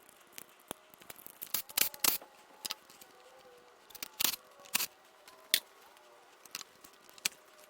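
Irregular sharp plastic clicks and snaps from unclipping the electrical connectors and harness clips on a BMW S52 engine, a dozen or so at uneven intervals.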